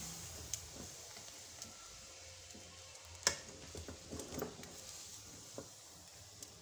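Caramelized sugar and milk bubbling and sizzling faintly in a pan while a silicone spatula stirs and scrapes through it, with scattered small clicks and one sharper click about three seconds in.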